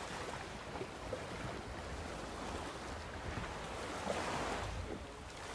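Water washing against the hulls of a sailing catamaran moving slowly under sail in light wind with its engines off, with wind rumbling on the microphone.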